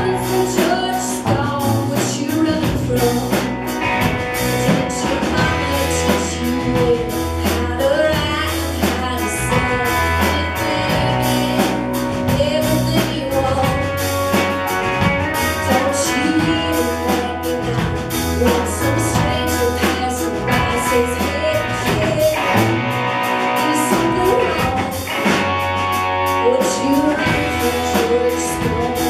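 Live rock band playing a song: a woman singing over electric guitars, bass and a drum kit.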